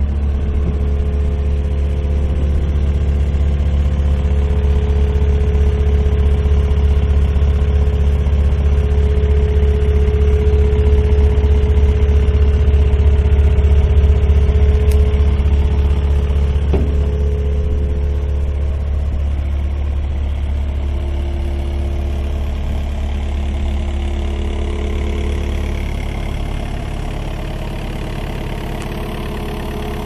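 Komatsu SK815-5N skid steer's turbo diesel engine idling steadily. It grows somewhat louder towards the middle and eases off a little near the end.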